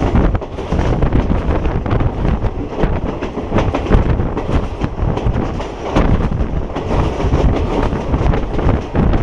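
Diesel passenger train of the Nam Tok line running along the track: a steady rumble with the wheels clattering over the rails.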